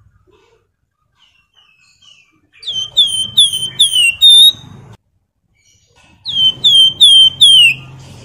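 Javan fulvetta (wergan Jawa) whistling: two phrases about three and a half seconds apart, each of four quick, clear notes that slide down in pitch.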